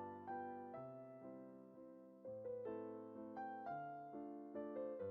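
Soft background music played on piano or electric piano: a slow run of single notes with gentle chords beneath, each note dying away.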